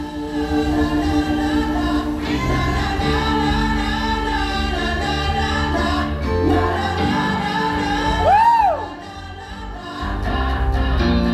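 Recorded song played for a lip-sync performance, with choir-like layered singing over held chords. About eight and a half seconds in, a loud gliding note rises and falls, followed by a short quieter stretch before the full music comes back.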